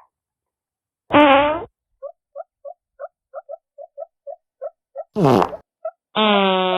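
Synthetic fart sound effects: three pitched farts, one about a second in, a short falling one about five seconds in, and a longer one near the end. Between them runs a steady series of short chirps, about three a second.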